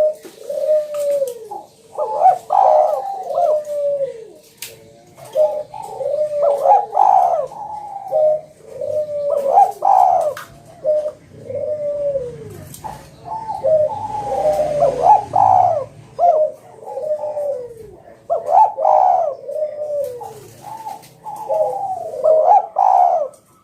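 Spotted dove (tekukur) cooing loudly, phrase after phrase of arched coo notes with hardly a break, a strong, sharp call of the kind used as a lure to draw rival doves.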